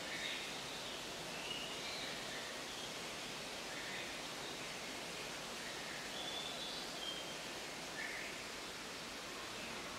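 Steady background hiss of indoor exhibit ambience, with short, faint, high chirps scattered through it every second or so.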